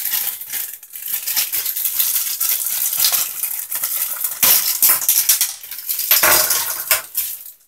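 Clear plastic bag of aquarium-filter fittings being handled and opened, the plastic crinkling continuously, with a few light knocks of hard plastic parts about halfway through and again near the end.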